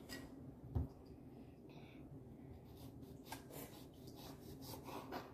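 Faint rubbing and scraping as lemon pieces are pressed by hand into a metal mesh strainer over a bowl, and a lemon is cut with a knife on a plastic cutting board. There is a soft thump about a second in, and a few short sharp strokes near the end.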